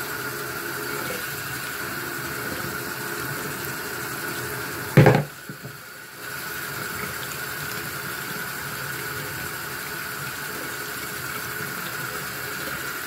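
Bathroom sink tap running, water pouring and splashing over a medicine container held under the stream. About five seconds in comes a sharp knock, the loudest sound, and the water sound drops off for about a second before returning.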